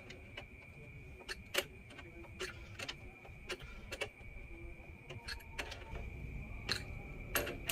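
Adjustable spanner clicking against a metal hex nut as a flexible hose connection is tightened: about a dozen sharp, irregular metallic clicks.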